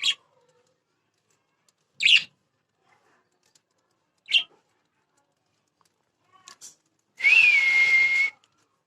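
Budgerigar giving short, sharp chirps about every two seconds, then a single held whistle lasting about a second near the end, with a small upward flick at its start.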